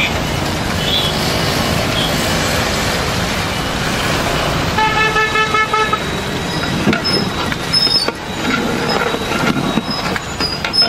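Street traffic noise with a vehicle horn honking once, for a little over a second, about five seconds in.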